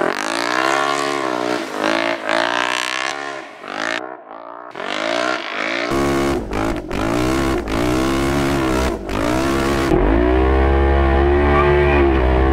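Polaris RZR side-by-side's engine, fitted with an aftermarket exhaust, revving hard and dropping back again and again as it is driven through snow. About six seconds in the sound turns to a heavier rumble as heard from the cab, and near the end the engine holds steady high revs.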